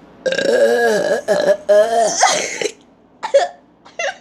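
A person's long burp, its pitch wavering, lasting about two and a half seconds with two brief breaks. It is followed near the end by a few short, choppy bursts.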